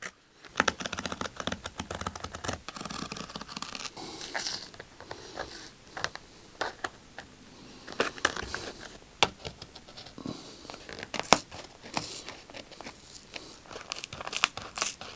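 Blade cutting along the stitch line of a car door armrest cover, with the cover pulled apart at the seam: irregular scratching, sharp clicks and tearing.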